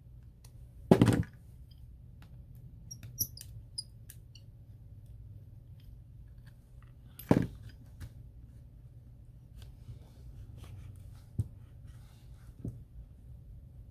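Hands and small repair tools handling an iPhone 7 during disassembly: scattered light clicks, ticks and faint squeaks, with two louder short knocks, one about a second in and one about seven seconds in.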